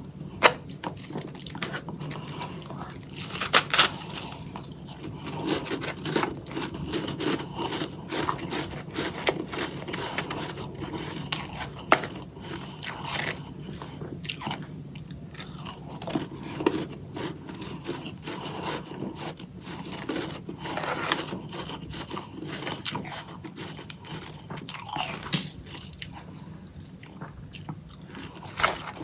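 Close-miked biting and chewing of a chunk of freezer frost: repeated irregular crunches and crackling chews.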